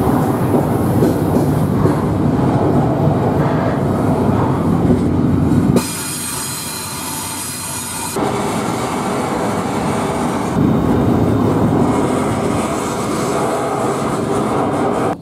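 Steady rumble and rattle of a moving double-stack freight train, heard from aboard a well car. About six seconds in, a high-pitched steel wheel squeal takes over for about two seconds while the rumble drops, then the rumble returns.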